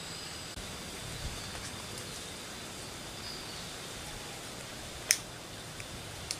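Streamside outdoor ambience: a steady even hiss with two faint, high, steady tones. A single sharp click about five seconds in is the loudest sound, and a smaller click follows near the end.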